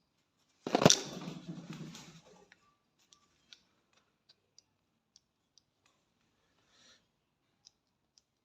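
A sharp knock with a rattling clatter about a second in, fading out over a second or so, then a string of faint, light clicks spaced about half a second apart.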